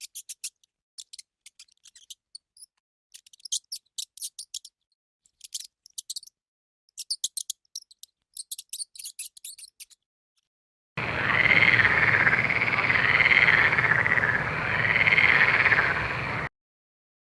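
Animal calls: for about ten seconds, short bursts of rapid, high-pitched clicking chirps. After a pause comes a louder call of about five seconds with a wavering, warbling tone, which stops suddenly.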